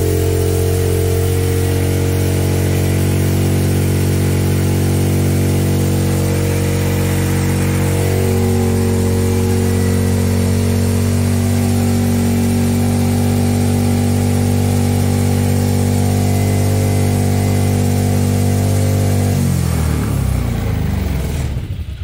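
Trailmaster Challenger 300 go-kart engine running fast and steady on its newly fitted, not yet adjusted replacement carburetor, staying running instead of dying. Near the end its pitch drops and the sound falls away.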